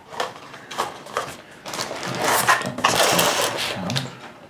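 Small cardboard lure boxes and plastic-packaged soft lures being handled: a few light clicks, then a stretch of rustling, rattling and knocks as the boxes are opened and set down on the table.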